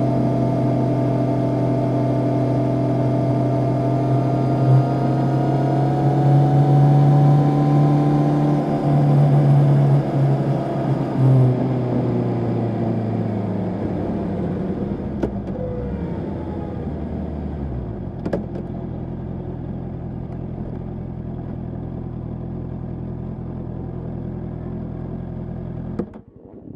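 Honda CB650R's inline-four engine on its stock exhaust, heard from onboard: running at low, gently varying revs, then the revs fall over several seconds midway to a steady idle. The engine sound stops abruptly near the end.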